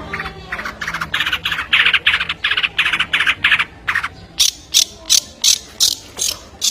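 A bird calling in a rapid run of harsh, rasping notes, about four a second. About two-thirds of the way in they change to sharper, higher-pitched ticks, a little slower.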